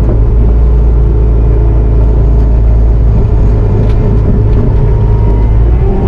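Bobcat T650 compact track loader's diesel engine running at a steady drone, heard from inside the operator's cab.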